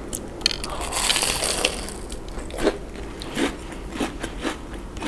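Close-miked crunching of a crispy deep-fried shrimp donut being chewed: a dense crackle about a second in, then separate crunches about every half second.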